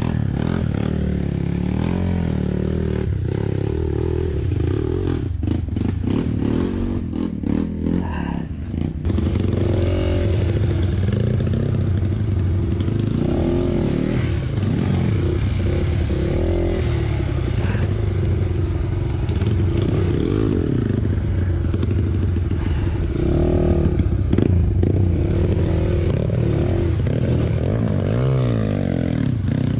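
Dirt bike engine running and revving up and down in bursts, with clattering knocks about six to nine seconds in and a rising rev near the end.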